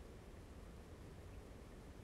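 Near silence: faint room tone with a low rumble.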